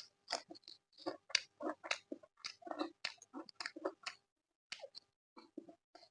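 Close-miked chewing while eating chicken curry with rice and naan: a quick, irregular run of mouth and lip sounds several times a second, breaking off briefly a little after four seconds in.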